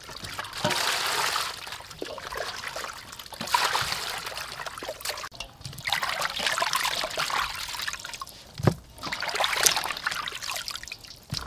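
Water splashing and trickling in irregular bursts as hands rub and swish raw chicken wings in a stainless steel basin of water, with a dull thump about three quarters of the way through.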